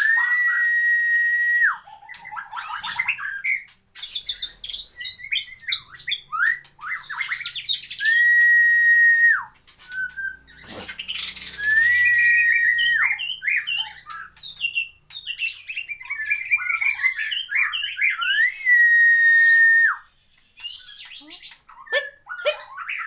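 White-rumped shama singing: four long steady whistles, each held for a second or more, between bursts of quick, varied warbles and chips, the full varied song that bird-contest keepers prize.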